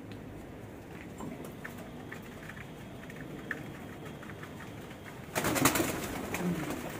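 Pigeons cooing in a loft. About five and a half seconds in comes a loud flurry of about a second, a pigeon flapping its wings as it is caught by hand.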